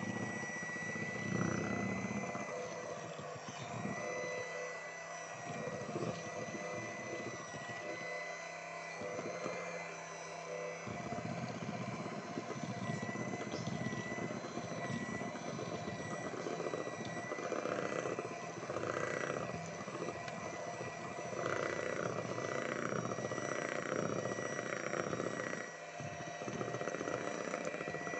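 Electric hand mixer running with its beaters churning thick cake batter in a stainless steel bowl, the motor giving a steady high whine.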